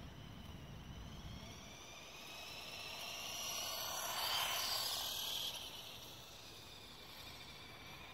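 High-pitched electric motor and gear whine of a Lego-built RC café racer motorcycle driving past. It builds, is loudest about four to five seconds in as the bike passes, then fades as it moves away.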